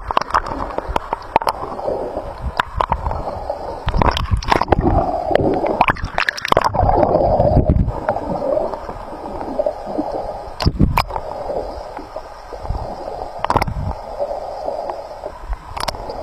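Muffled gurgling and rushing water heard underwater, with bubbles and many scattered sharp knocks and clicks, busiest around four to seven seconds in.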